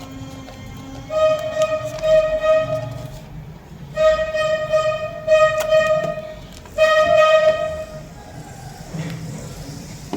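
Background music: a melody of long held, flute-like notes in three phrases, with a few light clicks between them.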